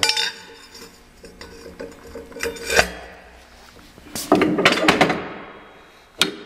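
Metal clanks and scraping from the breech of a Moffatt 12-pounder breechloading cannon as a steel cartridge case is pushed in and the breech is worked with its hand lever. A sharp clank comes about 3 s in, a longer scraping clatter follows around 4 to 5 s, and another sharp clank comes near the end.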